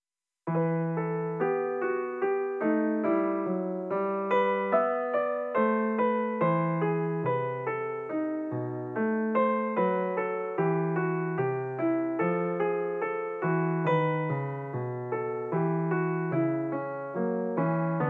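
Background music on a piano-like keyboard: a steady, even run of struck notes, about two a second, each fading away. It starts about half a second in.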